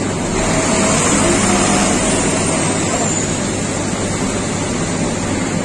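Asphalt paver's diesel engine running steadily at a constant loud level, with a broad rushing machinery noise over a low hum.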